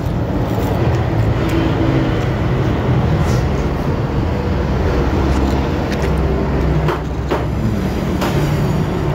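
Steady road traffic noise of cars and motorbikes going by on the road, a continuous low engine rumble, with a few short clicks about seven seconds in.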